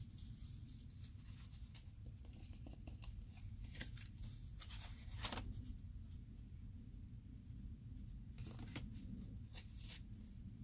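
Faint rustling and handling of paper greeting cards and cardstock, a few soft paper sounds as cards are opened and turned, over a low steady hum.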